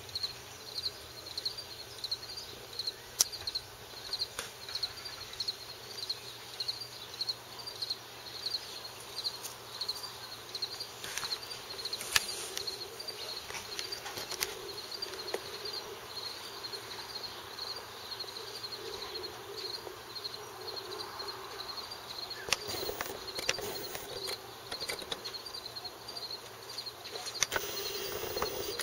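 A cricket chirping steadily in high, even pulses, about two or three chirps a second, with a few faint clicks and a brief rustle near the end.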